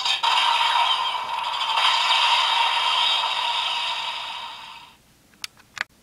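Electronic blast sound effect from a DX Magnum Shooter 40X toy blaster's speaker: one long noisy blast that fades away after about five seconds, followed by a few small plastic clicks.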